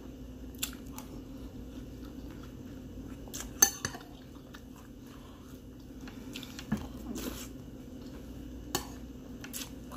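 Metal spoon clinking and scraping against a ceramic cereal bowl: a handful of short sharp clinks, the loudest about three and a half seconds in, over a low steady hum.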